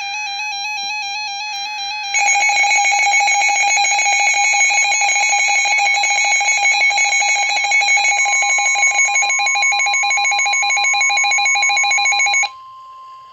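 Weather radio's electronic alert alarm sounding for a new severe thunderstorm warning. It is a warbling electronic tone that gets louder and rapidly pulsing about two seconds in. The alarm cuts off about a second before the end, leaving the steady 1050 Hz NOAA Weather Radio warning alarm tone.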